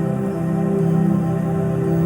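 Background music: slow new-age ambient music with soft held chords.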